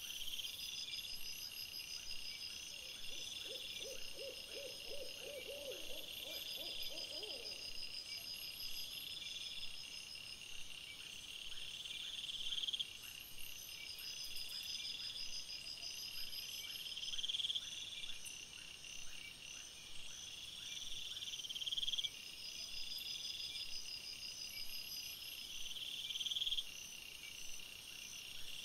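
Night insects, crickets or bush-crickets, chirping steadily in high pulsed trills. A few seconds in, a quick run of low, evenly repeated calls from another animal lasts about four seconds. The background level jumps abruptly every few seconds.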